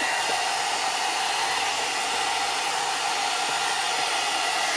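Soobest hair dryer brush running steadily on its middle, low-heat setting, an even whooshing whir of its fan.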